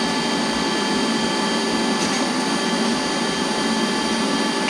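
A power tool's electric motor running steadily at one speed, a whining hum with several fixed pitches over a rushing noise.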